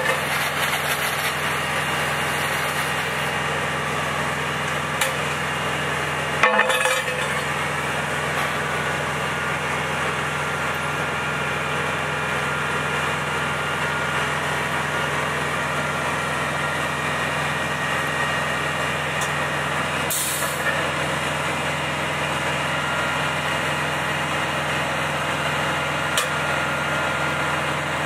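Fire truck engine running steadily at a constant speed, powering the aerial ladder's hydraulics while the ladder is raised. A clank about six seconds in and a short high hiss of air about twenty seconds in.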